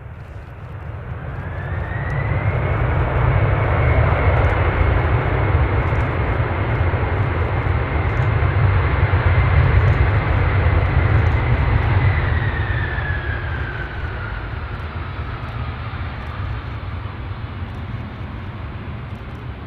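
Boeing 747-400 jet engines passing close by: a deep rumble with a high whine that rises in pitch early on the approach, holds, then drops away about two-thirds of the way through as the sound swells loud and then fades.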